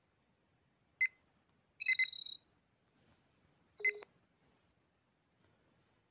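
Star Trek LCARS-style computer interface beeps from a phone app: three short electronic chirps. A quick one comes about a second in, a longer fluttering one around two seconds, and another near four seconds.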